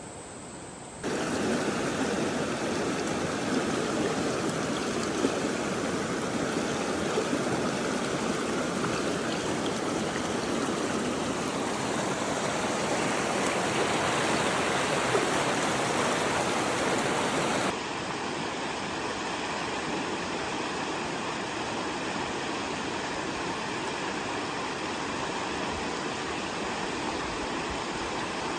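A steady rush of water with no distinct rhythm. It starts suddenly about a second in and drops to a quieter, thinner rush about 18 seconds in.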